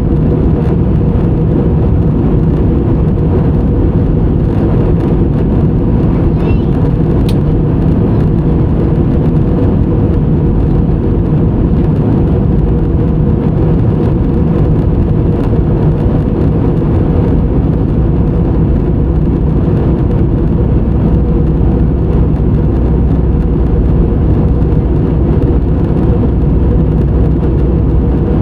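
Airliner cabin noise in flight: a steady, even rumble of the jet engines and rushing air, heavy in the low end and unchanging throughout.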